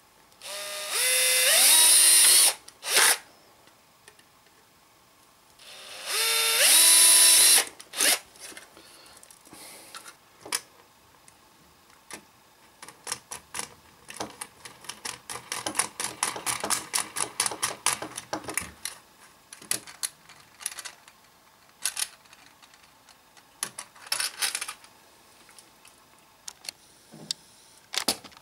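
Electric drill boring through the beer keg's thin sheet metal in two runs of about two seconds each, its whine rising as it spins up. After that, a long stretch of small metallic clicks and rattles as the parts are handled, quickest in a run near the middle.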